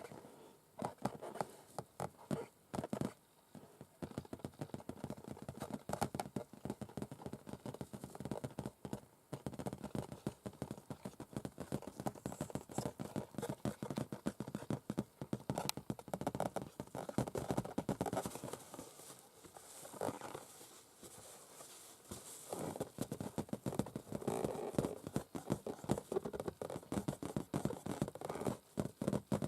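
Long acrylic nails tapping and scratching on inflated rubber balloons: a dense, uneven run of quick light taps mixed with scratchy rubbing.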